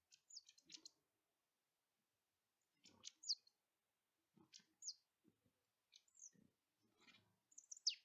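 Eurasian nuthatch calling: short, sharp, high notes that sweep downward, in five brief clusters about a second or more apart. Soft knocks come between them.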